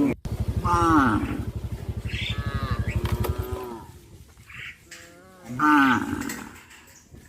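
Cattle mooing: a long, low, rough moo for the first three and a half seconds, with shorter, higher calls about a second in, around two and a half seconds, and again near six seconds.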